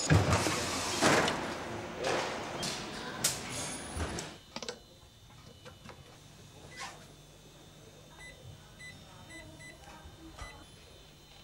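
Loud, noisy bursts of an industrial production machine with a few sharp clicks, fading out over the first four seconds or so. A faint steady hum follows, and near the end comes a quick string of short high beeps as a PIN is keyed on a touchscreen keypad.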